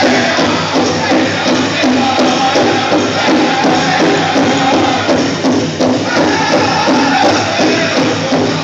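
Powwow drum group singing a chicken dance song over a steady big-drum beat.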